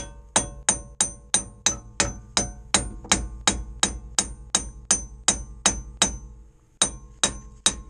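Hammer striking the steel rear wheel hub of a Sprinter/Crafter-type van, about three ringing metallic blows a second, to knock the hub and axle shaft loose for a rear axle bearing replacement. The blows stop briefly about six seconds in, then three more follow.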